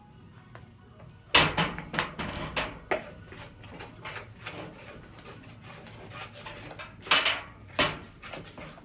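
Slime being mixed and handled: a run of sharp, irregular clicks and knocks, loudest about a second and a half in, with a second cluster around seven seconds.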